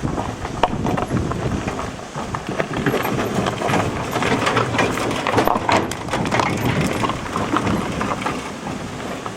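A vehicle rattling and knocking as it runs over a rough, badly broken road, with a continuous clatter of many small knocks.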